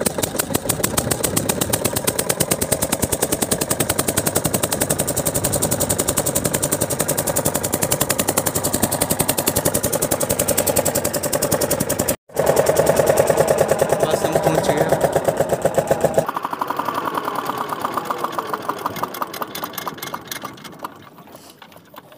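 A ferry boat's small diesel engine running, just after being started, with a fast, even chugging beat. The sound gets quieter over the last several seconds.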